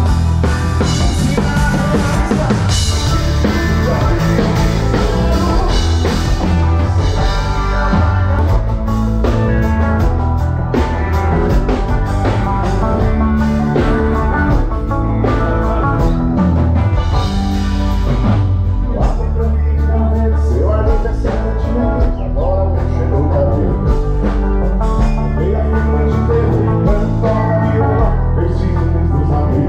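A band playing music with a full drum kit and a heavy bass line.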